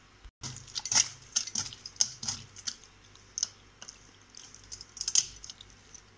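A bare hand squishing and mixing raw fish roe in a little water in a stainless steel bowl: irregular wet squelches with sharp clicks and taps against the metal, starting about half a second in.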